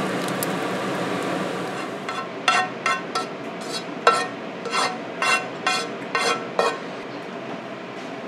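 Sharp clinks of metal tongs against a nonstick frying pan and a ceramic plate as fried pierogi and diced onion are moved from the pan onto the plate: about ten knocks with a short ring, bunched between about two and seven seconds in.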